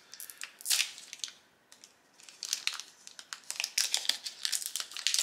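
Foil trading-card booster pack wrapper crinkling and crumpling as it is handled and opened, with a brief quiet stretch about a second and a half in.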